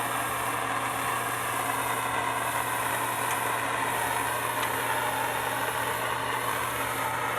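Plumber's gas torch flame burning with a steady hiss while heating a copper pipe fitting for soldering.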